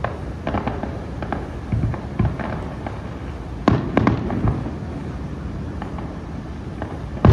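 Distant aerial firework shells bursting: a run of sharp pops and bangs over a low rumble, the two loudest coming about three and a half and four seconds in.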